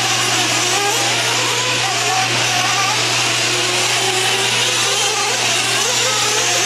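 Several 1/8-scale nitro RC truggy engines running together, each pitch rising and falling as the cars accelerate, lift off and turn, over a steady low hum.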